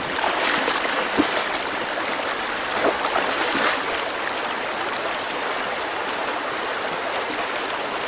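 Fast, shallow trout stream rushing over a riffle: a steady wash of water, with a few short louder sounds in the first half.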